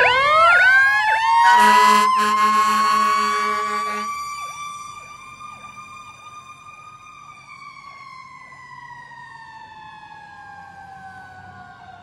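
Fire engine responding with its siren on: the wail sweeps up in pitch over about two seconds, holds, then slowly winds down from about seven seconds in. A steady horn blast sounds over it for about two and a half seconds. The sound grows much fainter after about four seconds as the truck moves away.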